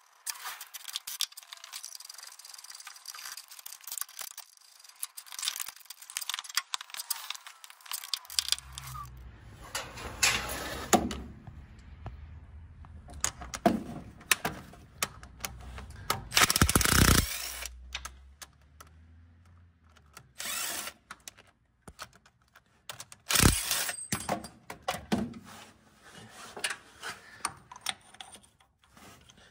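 Metal tools clicking and clanking against an engine's harmonic balancer and a bolt-on balancer puller. Twice there are short loud bursts from a cordless drill/driver turning the puller's centre screw.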